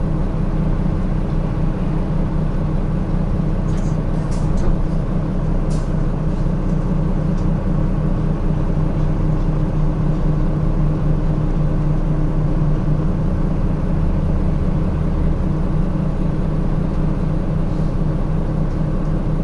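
Steady low engine hum and road noise inside a city bus cabin, with a few light clicks or rattles about four to six seconds in.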